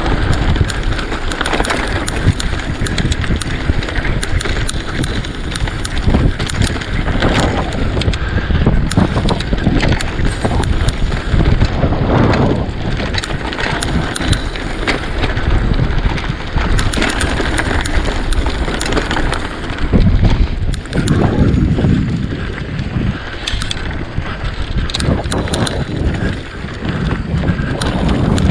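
Mountain bike descending rough, rocky singletrack: tyres rumbling over the ground and the bike rattling, with frequent sharp knocks and clatters, under loud wind rushing across the microphone.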